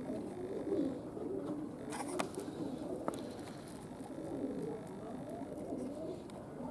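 Domestic pigeons cooing continuously in a low murmur, with a few sharp clicks about two and three seconds in.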